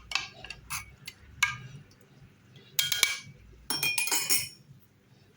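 Glass clinking as a glass bottle is handled: a few light knocks, then louder ringing clinks about three seconds in and again about a second later.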